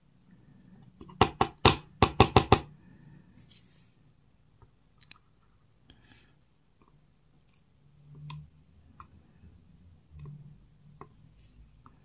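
Springs being dropped out of a disassembled Robur safe deposit box lock: a quick run of about six sharp clicks and knocks about a second in, then scattered faint ticks.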